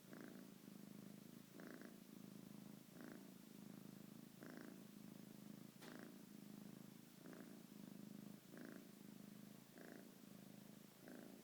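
Sleeping pet snoring faintly: a low buzzing rattle that swells with each breath, about every second and a half.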